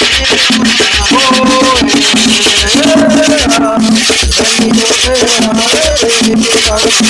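Latin-style music with a steady beat, a bass line and a shaker-like rattle, over which a melodic voice or instrument holds bending notes.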